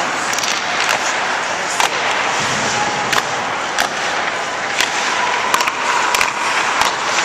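Hockey skates scraping on the ice, with sharp clacks of sticks and pucks at irregular moments, one or two a second.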